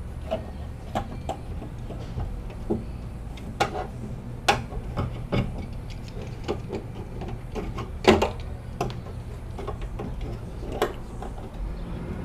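Irregular taps, clicks and crinkles of hands pressing foil-backed Dynamat Extreme sound-deadening mat against the sheet-metal inner skin of a van's cargo door, with a sharper knock about eight seconds in. A low steady hum runs underneath.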